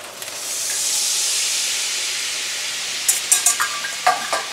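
Sauce poured into a hot skillet, hitting the pan with a loud hiss of steam that swells about half a second in and slowly dies down. A few sharp clinks come near the end.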